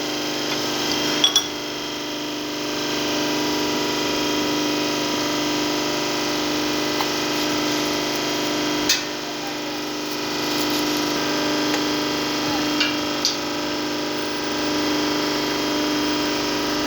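A workshop machine running steadily with a constant multi-tone hum, broken by a few sharp clicks: one about a second in, one around the middle, and two close together later on.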